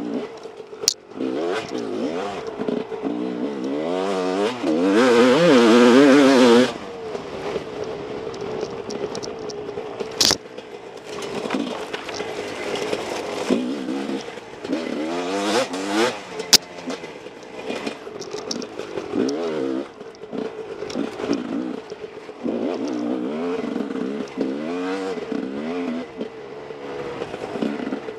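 2012 Husqvarna WR 300 single-cylinder two-stroke dirt bike engine revving up and down as it is ridden along a trail, loudest in a hard burst of throttle about four to six seconds in. A few sharp knocks cut through it, near the start, about ten seconds in and about sixteen seconds in.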